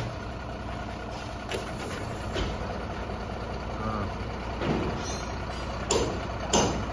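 Ashok Leyland truck's diesel engine idling steadily, with two sharp knocks near the end.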